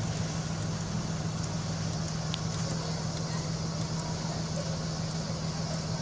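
Blue Bird Vision school bus engine idling while stopped, a steady low drone.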